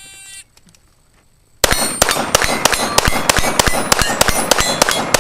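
A shot timer's short start beep, then after about a second and a half a fast string of pistol shots, roughly four to five a second, with steel targets ringing as they are hit.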